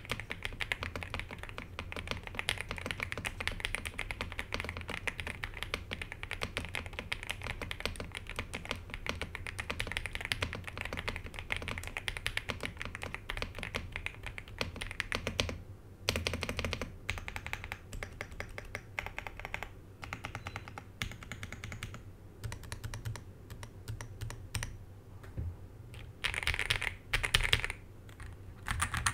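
Typing on a Monka 3098 Pro V2 gasket-mounted mechanical keyboard with Monka Sea Salt tactile switches and a polycarbonate plate. Fast, continuous keystrokes for about fifteen seconds, then a short pause and slower, scattered clusters of keystrokes, with a louder flurry near the end.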